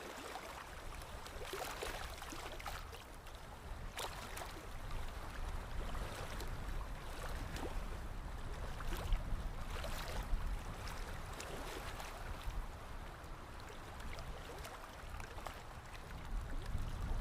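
Paintbrush strokes on canvas, a scratchy brushing and scrubbing noise made of many short strokes, over a low steady rumble.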